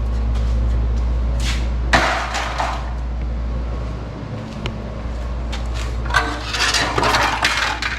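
Rusted sheet-metal scraps clattering as a cut-out floor and trans-tunnel piece is dropped onto a pile of scrap, about two seconds in, then a longer stretch of metal pieces scraping and rattling as the pile is handled near the end, over a steady low rumble.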